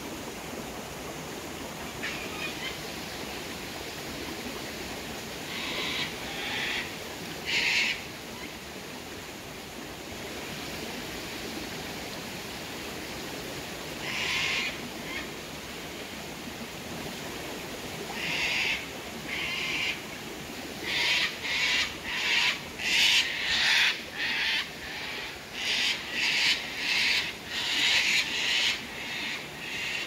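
Cockatoos calling over the steady rush of a waterfall. The calls come singly and far apart at first, then many in quick succession through the last ten seconds.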